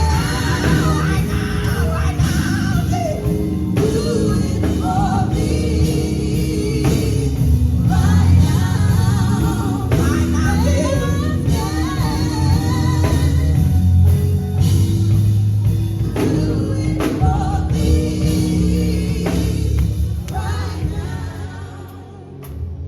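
Live gospel music: a gospel group singing with a full band behind them, strong bass and drums. The music drops away near the end.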